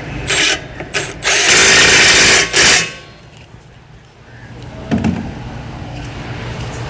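Power impact wrench driving a brake caliper bracket bolt: one long burst of about a second, then a short second burst. A few clicks from parts and tools come before it.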